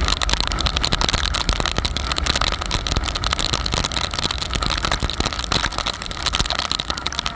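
Sport motorcycle at speed: steady engine drone under wind rush over the microphone, with frequent small ticks.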